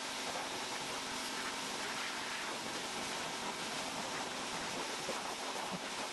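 Ryobi 1500 PSI battery-powered pressure washer spraying a car, a steady hiss of water spray against the body panels as foam is rinsed off.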